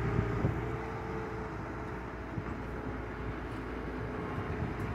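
Liebherr 936 crawler excavator's diesel engine running steadily under working load as the machine raises its boom and bucket.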